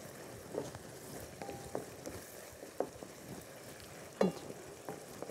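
Minced meat and onions frying quietly in a non-stick pan, stirred with a wooden spoon that knocks and scrapes against the pan a few times, the loudest knock about four seconds in.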